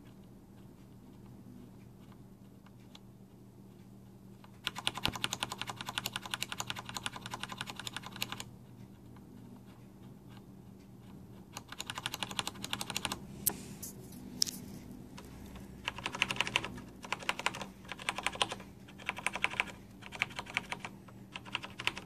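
Roccat Ryos MK mechanical keyboard with linear Cherry MX Black switches being typed on rapidly. The key presses come in bursts: nothing for the first four seconds or so, a fast run of keystrokes lasting about four seconds, a pause, another short run, a few single presses, then several short bursts near the end.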